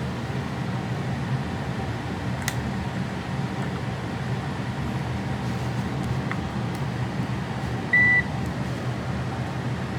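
Steady low background hum, with a faint click about two and a half seconds in and one short, high electronic beep from a digital multimeter about eight seconds in.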